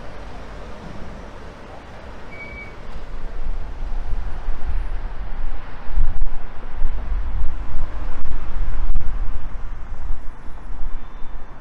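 Road traffic on a city street, vehicles driving past. Heavy low rumble that grows much louder about three seconds in and surges unevenly.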